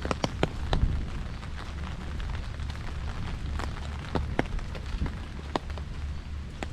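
Rain falling, with scattered drops tapping sharply and irregularly close by, over a steady low rumble.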